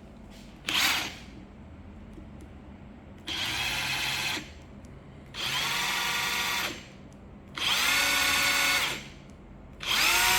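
Makita TW011G cordless impact wrench triggered in short runs: a brief blip, then four runs of about a second and a half each. Each run opens with a rising whine as the motor spins up and then holds steady, and the later runs are louder.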